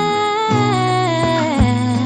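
Background music: a gliding, sung or hummed melody over steady bass notes and a regular beat.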